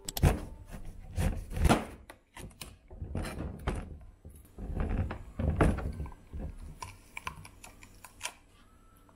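Kitchen knife cutting through a red bell pepper and knocking on the cutting board: a few separate thunks, then softer clicks and crunches as the pepper's core is pulled out by hand.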